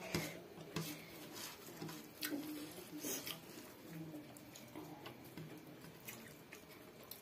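Close-miked eating sounds: wet lip smacks and mouth clicks while chewing food eaten by hand, coming irregularly every half second or so.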